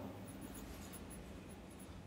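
Faint scratching of handwriting on a textbook page, a word being written in the margin.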